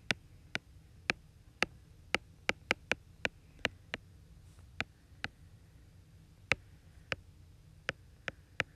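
Stylus tip tapping on a tablet's glass screen while handwriting: a string of sharp, irregular clicks with short pauses between words.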